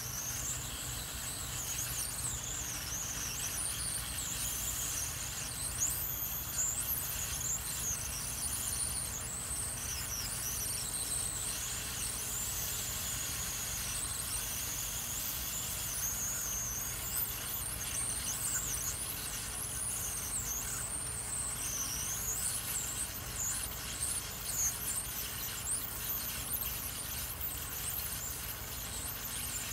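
Hot-air rework station handpiece blowing on a circuit board, heating a surface-mount IC to melt its solder: a steady rush and hum with a high, wavering whistle that glides up and down in pitch.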